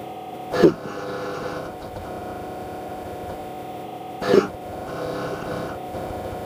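Made-up creature sound effect for a cryptid shark: two short, grunt-like calls about four seconds apart, each dropping in pitch, over a steady humming drone.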